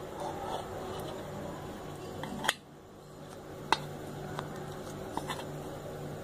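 Milk poured into a bowl of oats, then a few sharp knocks of dishes, the loudest about two and a half seconds in and another about a second later, over a steady low hum.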